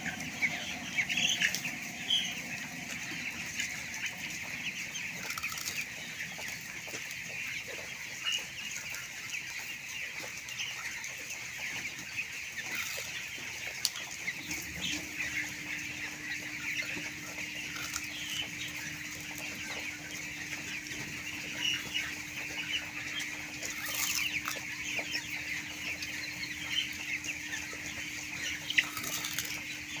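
A large flock of young broiler chickens calling all at once in a dense, steady chatter, with occasional wing flapping. A steady low hum comes in about halfway through.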